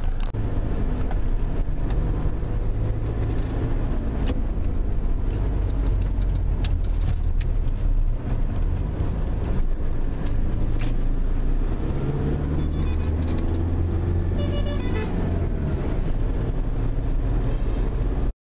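Engine and road noise inside the cabin of a moving Toyota car: a steady low rumble with a few light knocks. A horn sounds briefly about two-thirds of the way through.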